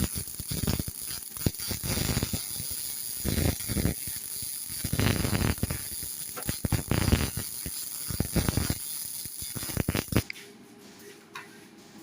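MIG welding arc crackling and sputtering in uneven bursts over a steady high hiss, cutting off suddenly about ten seconds in.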